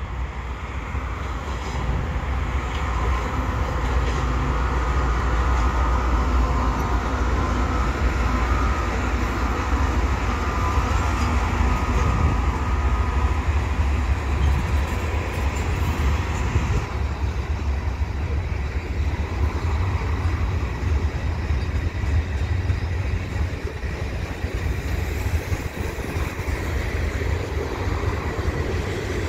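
A Canadian Pacific freight train passing, led by two GE AC4400CW diesel-electric locomotives whose engines drone with a deep rumble. From a little past halfway the engine drone gives way to the steady rumble of freight cars rolling on the rails.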